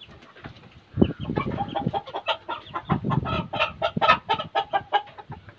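Chickens clucking in a fast, agitated run of short clucks, about five a second, starting about a second in, as a rooster is chased and caught. Low scuffling thuds from the birds and the man's movements sit underneath the clucking.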